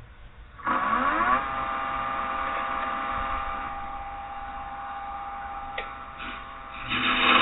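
Carbide-tip turning tool cutting into spinning green oak on a wood lathe: the cut starts abruptly about a second in with a steady whining scrape, and grows louder near the end.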